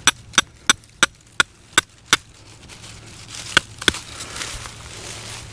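A hammer driving a tarp stake into the ground: seven sharp strikes at about three a second, then a pause and two more blows.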